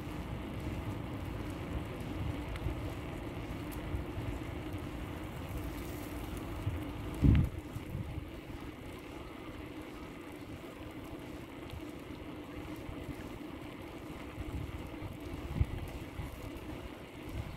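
Bicycle rolling along a paved path: a steady low rumble of tyres and wind on the microphone, with a sharp low thump about seven seconds in and a smaller one near the end.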